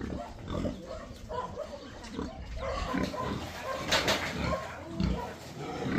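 Domestic pigs grunting irregularly in a pen, with one louder, harsher call about four seconds in.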